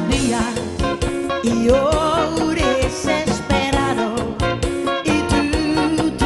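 A woman singing a pop song into a microphone, her voice wavering with vibrato, over a band backing with a steady drum beat.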